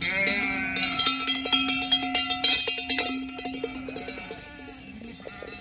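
Bells on a passing flock of sheep clanking and jingling, with sheep bleating. The clanking is densest in the first three seconds and then thins out.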